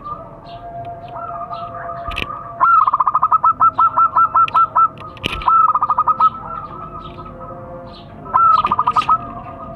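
Zebra doves (perkutut) cooing: three quick runs of rapid staccato notes, the first and longest about ten notes over two seconds, over fainter calls from other doves. Short high chirps of small birds and a couple of sharp clicks come in between.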